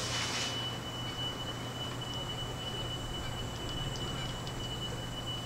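Faint background ambience: a steady high-pitched tone with a low hum beneath it, and a soft rushing noise in the first half second. No club strike is heard.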